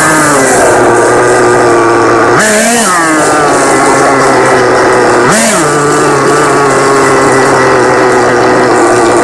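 Nitro RC car's small two-stroke glow-fuel engine running with a steady high buzz. Its pitch drops at the start, then rises in two brief revs, about two and a half and five and a half seconds in.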